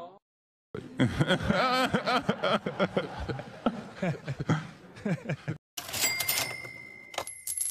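A meme sound clip of a man laughing, then about six seconds in a bright ding sound effect that rings on.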